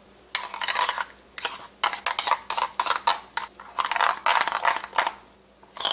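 Metal spoon scraping and clinking against a bowl and plate in a run of short, irregular strokes as spices and yogurt are worked together.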